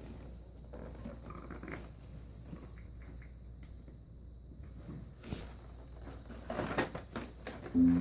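Toy packaging being handled and opened: light rustling and small plastic clicks, getting busier and louder near the end.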